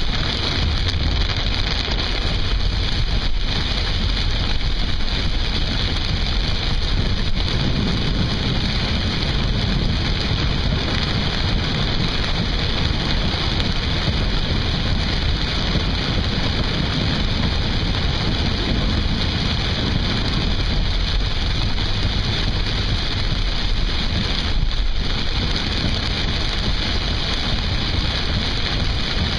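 Car driving through torrential rain and flooded streets, heard from inside the cabin: a steady, loud rush of rain and water spray.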